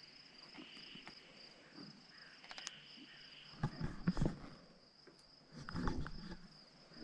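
Faint, steady high-pitched trilling of field insects, with a second insect call pulsing on and off. Low bumps and rustles of the handheld camera being handled come about four seconds in and again near the end.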